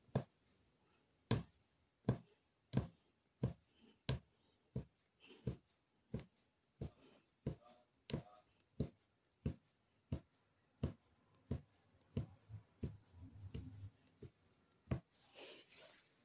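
Punch needle stabbing yarn through fabric stretched taut on a frame: a regular train of soft pops, about three every two seconds, with a short rustle of handling near the end.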